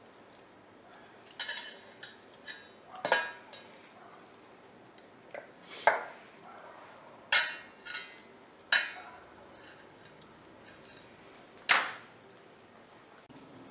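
Kitchen dishes and utensils clinking and knocking about a dozen times at irregular intervals.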